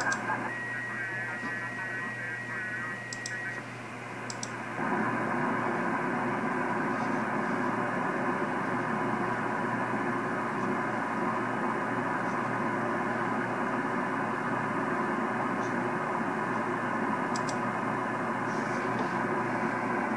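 Receiver audio from an RTL2832U software-defined radio tuned to the 10-metre band, hiss mixed with buzzy interference and cut off above about 3 kHz. A steady whistle-like tone sounds for the first few seconds. About five seconds in the sound jumps louder as the receiver is retuned, then carries on as steady noisy interference, with a few faint clicks.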